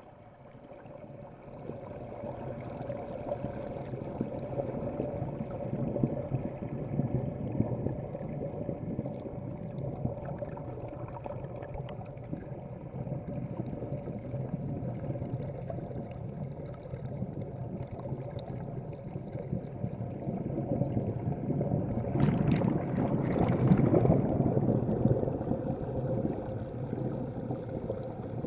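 Churning, bubbling water heard underwater, with a steady hum beneath it. It swells over the first couple of seconds and grows loudest for a few seconds near the end.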